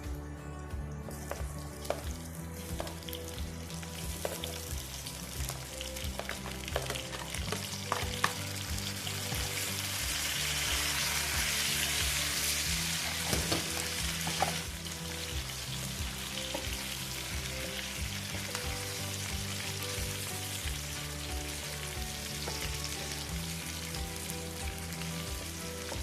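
Food sizzling as it fries in a pan while being stirred, with occasional clicks of the utensil against the pan; the sizzle swells loudest about ten seconds in and eases again about fourteen seconds in. Soft background music plays underneath.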